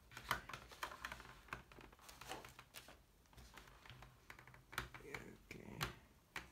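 Hands handling a full-face motorcycle helmet and its removable foam cheek pad: faint, irregular light clicks, taps and rustles.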